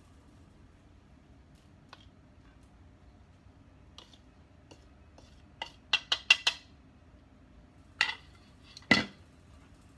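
Kitchen utensils and dishes clinking: a quick run of about five clinks around six seconds in, then two louder knocks near the end.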